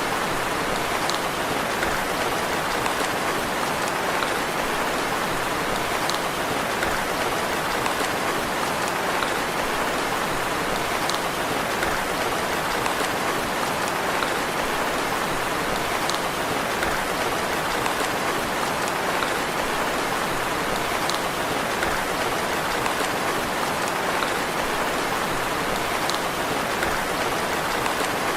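Steady rain falling, an even hiss with faint drip ticks every two to three seconds.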